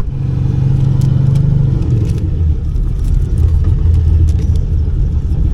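Turbocharged LS V8 drag car idling with a heavy low rumble; the engine note drops a little about two seconds in.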